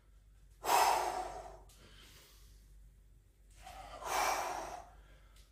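A man breathing hard from exertion during forward lunges: two heavy breaths out, the first starting sharply about half a second in, the second about three seconds later.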